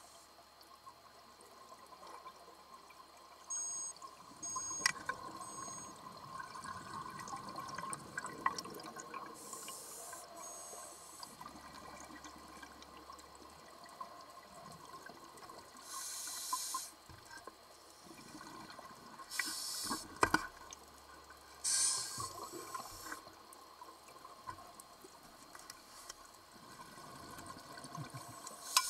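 A scuba diver's regulator heard underwater: a burst of exhaled bubbles hisses out every several seconds, over a faint steady hum and a few sharp clicks.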